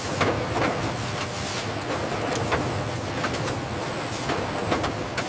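Factory machinery running steadily with a low hum, with irregular clattering knocks every half second to a second.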